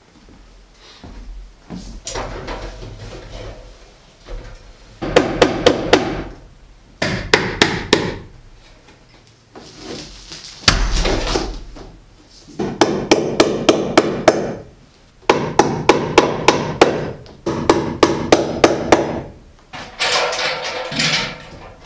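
Hammer driving staples to fasten electrical cable to the wooden framing, in several quick runs of sharp blows with short pauses between.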